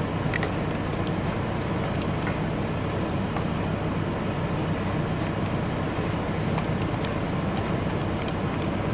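Steady low hum and rumble of the truck running, with a few faint ticks over it.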